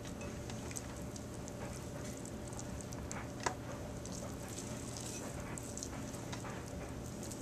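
Hands sorting cooked chicken meat in a metal roasting pan: soft, scattered clicks and light scrapes on the metal, with one sharper tap about three and a half seconds in, over a steady low hum.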